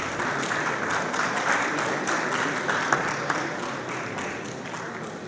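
Audience applause: dense clapping that tapers off over the last couple of seconds.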